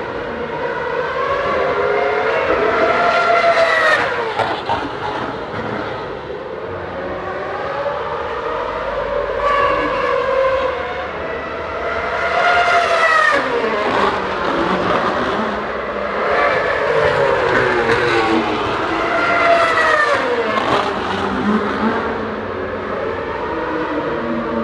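Formula 1 cars' 2.4-litre naturally aspirated V8 engines at high revs, passing one after another, about six times. Each pass ends in a falling pitch.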